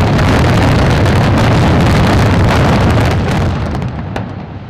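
Apartment block collapsing in an explosive demolition: a loud, continuous rumble with many sharp cracks through it, beginning to die away about three seconds in.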